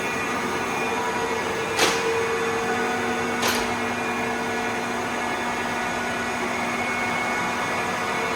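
Cincinnati Vercipower horizontal milling machine running under power: a steady machine hum with a constant low whine. Two sharp clicks come about two seconds in and again about a second and a half later, the first the louder.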